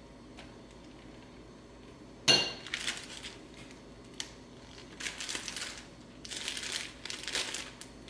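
A spoon clinks once against a glass bowl about two seconds in, then a zip-top plastic bag crinkles in stretches as it is handled and sealed shut.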